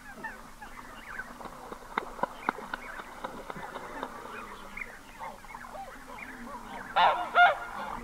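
Red-breasted goose calling at close range: repeated short, high-pitched honks amid a continuous chatter of calls, with the loudest burst near the end.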